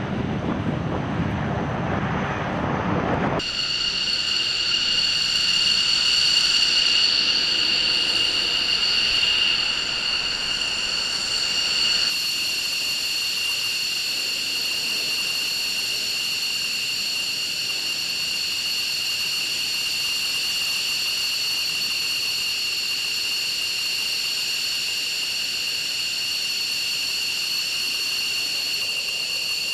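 F-15 jet engines: first a rushing roar as the fighter lands, then, about three seconds in, a steady high-pitched turbine whine from an F-15E Strike Eagle's twin engines idling on the ramp.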